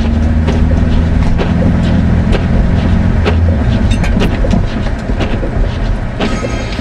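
1995 Subaru Legacy's flat-four engine running hard, heard from inside the car as it slides through deep snow, with its note dropping about halfway through. Frequent knocks and thuds come from snow and ruts striking the car body.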